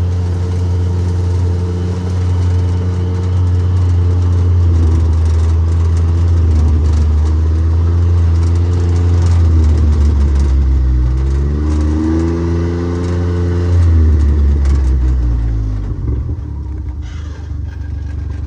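A vehicle's engine running steadily while under way; its pitch dips about ten seconds in and rises again, then falls away near the end as the vehicle slows down.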